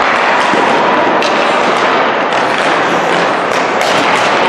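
Ice hockey warmup: several sharp cracks of sticks striking pucks and pucks hitting the boards or net, over a steady loud rink noise.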